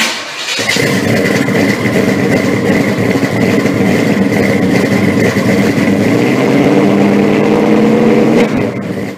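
Car engine running loud, with a steady high whine over it and its pitch climbing a little in the second half, then cutting off suddenly.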